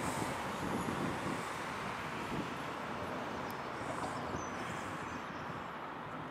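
Airbus A320's twin turbofan engines at takeoff thrust as the jet lifts off and climbs away: a steady rushing jet noise that slowly fades toward the end.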